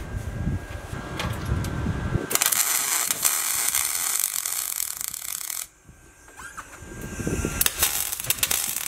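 MIG welder arc crackling on an aluminium tube: one weld of about three seconds, a short pause, then the arc strikes again. Before it, low wind rumble on the microphone and a few light knocks.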